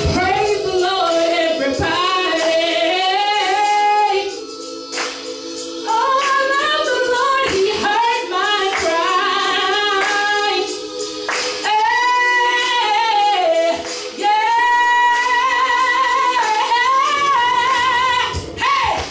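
A woman singing a gospel praise song into a microphone, with a wavering vibrato on her long held notes, over held keyboard chords.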